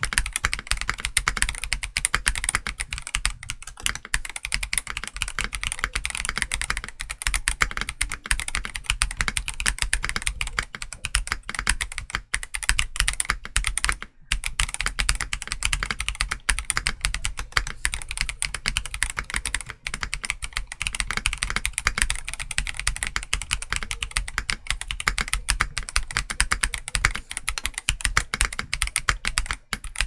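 Continuous fast typing on a Redragon K649 Elf Pro mechanical keyboard with transparent polycarbonate OEM-profile keycaps, a dense run of key clacks, close-miked. There is a brief pause about halfway through.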